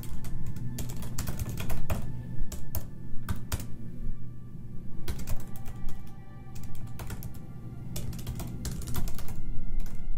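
Typing on a computer keyboard: irregular runs of keystroke clicks as a sentence is typed, with short pauses between words.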